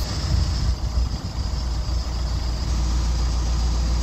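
Narrowboat's diesel engine idling: a steady low rumble, with uneven low thumps over it in the first two seconds.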